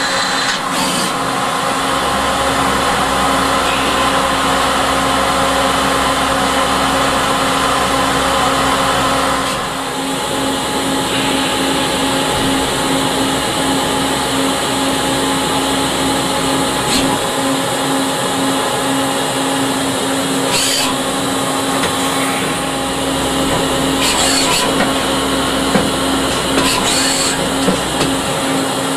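Citizen A20 VII Swiss-type CNC lathe running, its spindle turning and the thread-whirling attachment cutting a thread: a steady machine hum and whine whose sound changes about ten seconds in. Several short hissing bursts come in the second half.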